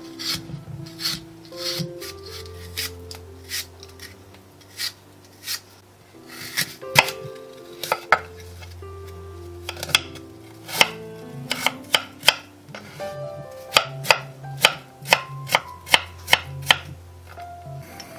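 An apple being peeled with a hand peeler and then sliced with a kitchen knife on a wooden cutting board, the blade knocking sharply against the board again and again. The knocks come about twice a second near the end.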